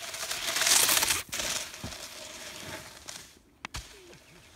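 Snowboard sliding and scraping down grass strewn with hailstones: a crunching hiss that is loudest about a second in and then fades. A single sharp click comes near the end.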